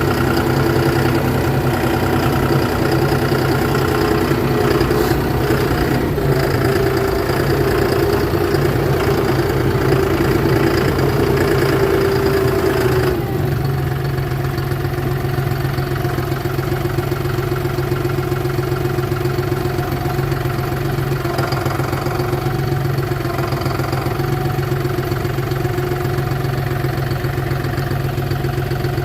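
Tractor engine idling steadily, its note changing abruptly about thirteen seconds in, then running on evenly.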